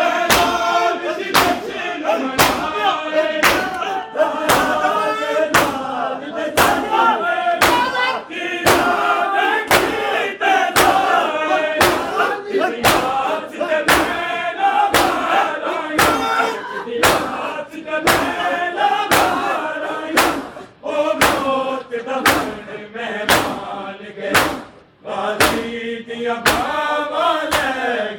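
Large group of men chanting a Punjabi noha in unison while slapping their bare chests in matam, the sharp slaps falling in a steady, even beat under the singing.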